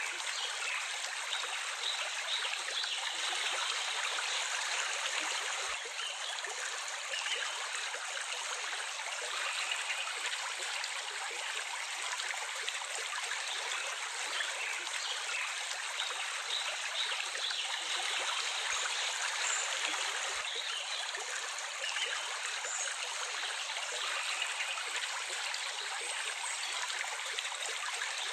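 Water flowing steadily in a small stream, a continuous even rush with no pauses.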